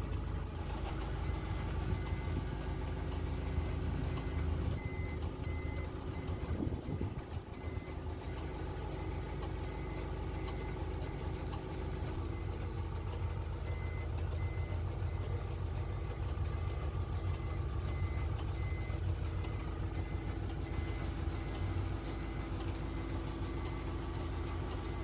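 Truck diesel engine idling steadily, with an electronic beeper sounding a regular series of short, high beeps over it.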